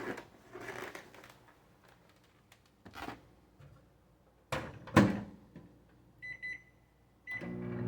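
Microwave oven being started: a few light knocks, a loud bang of the door shutting about five seconds in, then short keypad beeps. Near the end the oven starts its steady hum.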